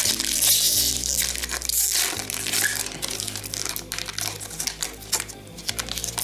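Foil trading-card pack wrapper crinkling as it is opened and handled, busiest in the first two seconds.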